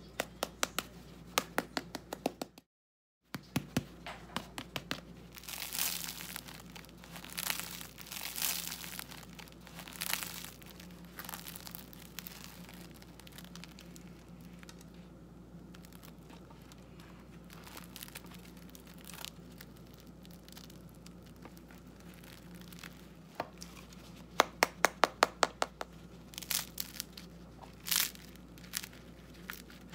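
Crisp crusts of freshly baked homemade mini baguettes being squeezed and torn open by hand, giving a crispy sound. Runs of quick sharp crackles at the start and again near the end, with longer tearing sounds in between.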